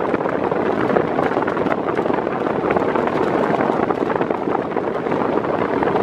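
Britânia Turbo B400 40 cm pedestal fan running fast, a steady rush of air from its blades with the blast buffeting the microphone.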